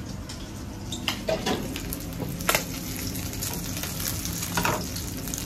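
Salmon pieces sizzling in oil in a non-stick frying pan, a steady frying hiss with a few sharp clicks and taps.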